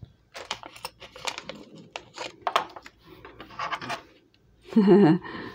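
Costume jewelry clicking and clinking as the pieces are handled and picked through, a string of light metallic clicks. A short voice sound comes near the end.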